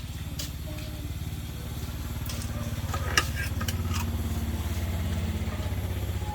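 A motor running steadily with a low rapid pulsing that grows slightly louder, with a few sharp clicks over it.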